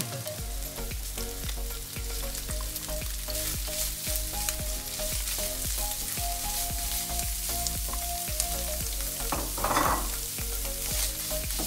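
Minced beef frying in olive oil with onions in a nonstick pan, a steady sizzle. Over it, a plastic spatula scrapes the beef out of a bowl and knocks and stirs against the pan, many sharp clicks and scrapes.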